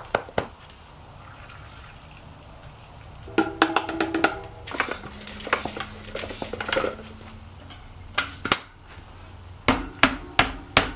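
Tubeless mountain-bike tyre being inflated from a floor pump: hissy air bursts, then a loud sharp crack about eight seconds in and more cracks near the end as the tyre bead snaps onto the rim, over background music.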